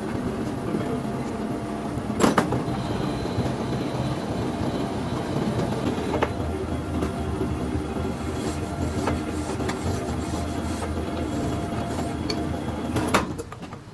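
An engine running steadily, with a few sharp knocks, the loudest about two seconds in. The engine noise drops away just before the end.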